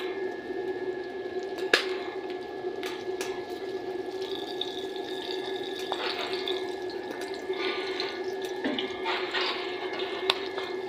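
Chapli kebabs deep-frying in hot ghee in an iron karahi: a steady sizzle of bubbling fat with a couple of sharp pops.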